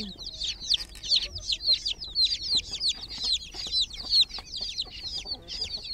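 A group of baby chicks peeping continuously: many short, high-pitched cheeps overlapping, most of them sliding down in pitch.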